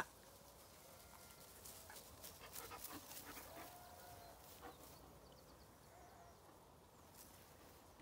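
A puppy yips sharply once at the start, then quiet, with faint scuffling and a brief faint whine from puppies play-fighting in grass.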